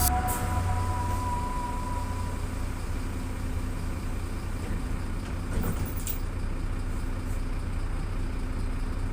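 Steady low rumble of a city bus running along its route, engine and road noise heard from on board, with a few faint knocks about halfway through.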